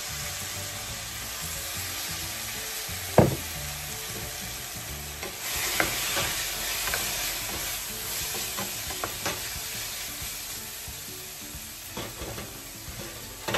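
Chopped pork, onion and garlic sizzling steadily in a nonstick frying pan with fish sauce just added, stirred and scraped with a spatula. A single sharp knock about three seconds in is the loudest sound, and the sizzle grows louder with the stirring from about halfway.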